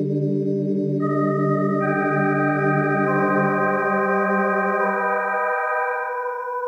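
Intro music of long held chords: a low chord dies away about five seconds in while higher notes come in one after another, each held.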